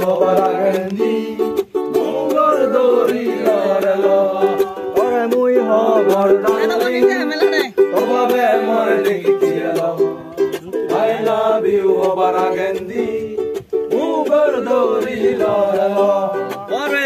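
Ukulele strummed in steady chords, with a male voice singing along.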